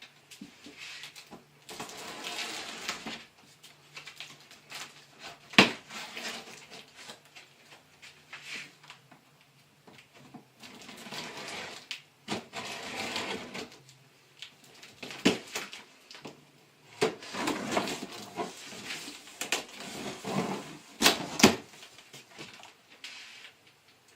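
Cardboard box and packaging being opened and handled: stretches of rustling and scraping with several sharp knocks, the loudest about five and a half seconds in and a pair near the end.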